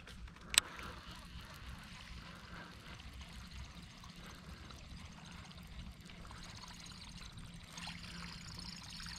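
Faint trickling and splashing of water, a little stronger near the end, with one sharp click about half a second in.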